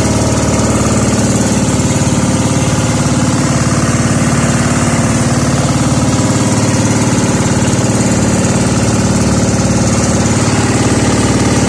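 Motorized outrigger boat's inboard engine running at a steady, unchanging speed under way, loud and close.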